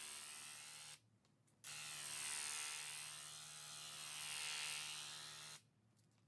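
Graco TrueCoat 360 VSP handheld electric airless paint sprayer spraying paint, a steady buzz with a hiss. It cuts off about a second in, starts again after about half a second, runs for about four seconds, then stops.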